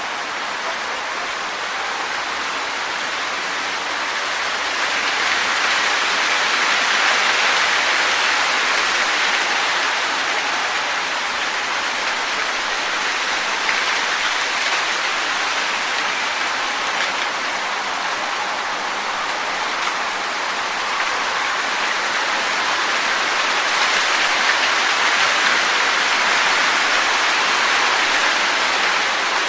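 Wind blowing through trees, rustling the leaves in a steady hiss that swells twice in gusts.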